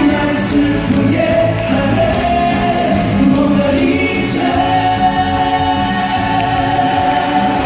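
Live stage music with singing over a backing band, several voices together; a long note is held through the second half.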